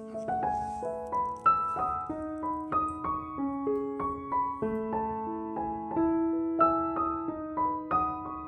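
Background piano music: a melody of single notes struck one after another, each ringing on over lower held notes.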